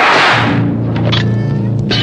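Trailer soundtrack: a short rush of noise, then a low, steady, eerie drone.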